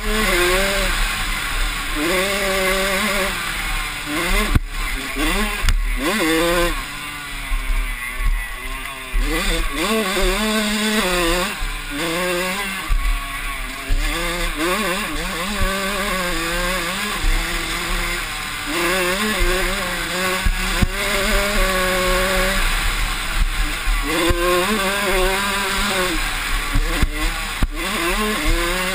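Yamaha YZ85 two-stroke dirt bike engine racing hard, its note climbing and dropping again and again with throttle and gear changes, with wind rushing over the on-board microphone. A few sharp knocks come from the bike hitting bumps.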